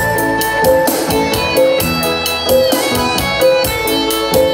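Live band playing an instrumental passage on keyboard and drum kit with a steady beat.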